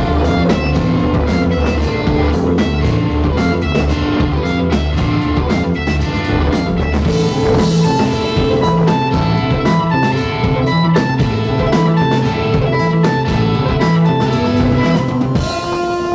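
A rock band playing live: electric guitars and bass over a steadily beating drum kit, with long held notes on top.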